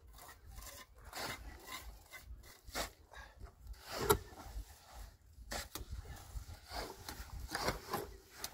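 A hand tool scraping on wood in short, irregular strokes, about two a second.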